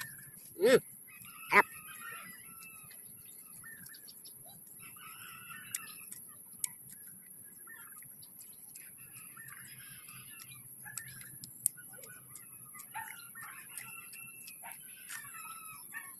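Chickens clucking on and off, with two sharp loud sounds about a second in and scattered small clicks.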